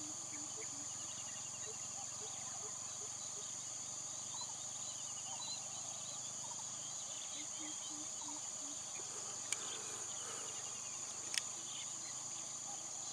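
Steady high-pitched drone of insects in a grassy field, with faint scattered chirps and two sharp clicks about two seconds apart in the second half.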